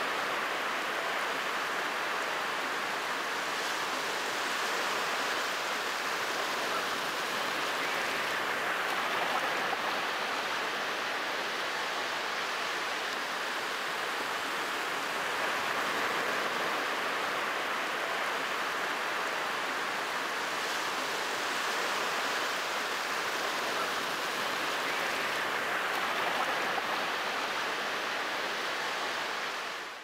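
Sea surf washing onto a sandy beach: a steady, continuous hiss of water with slight swells in level, cutting off abruptly at the end.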